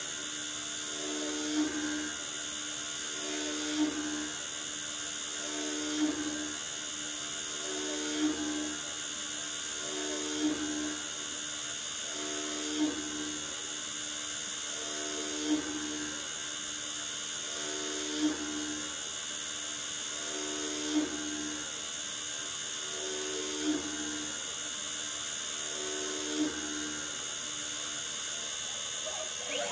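DIY CNC lathe milling a round bar with a live-tooled end mill: a steady high whine from the spinning cutter. A humming note swells and peaks about every two and a half seconds as the machine makes pass after pass.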